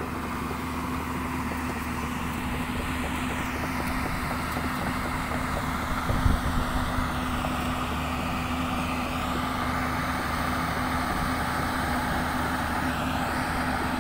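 A two-wheeler's engine running steadily while riding over a dirt construction track, with wind and road noise and a brief thump about six seconds in.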